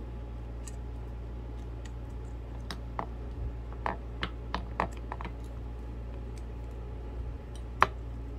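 Small metal clicks and taps as the pinion shaft and its side cover are worked into a Saginaw power steering gear box housing: a quick run of clicks about three to five seconds in, then one sharper click near the end, over a steady low hum.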